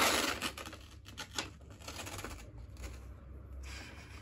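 Wrapping paper being torn off a gift box and crinkled in the hands: a burst of tearing at the start, then fainter scattered crackles.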